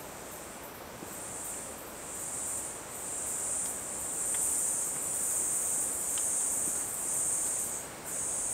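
A high-pitched insect buzzing trill in long, swelling pulses of one to two seconds, with short gaps between them.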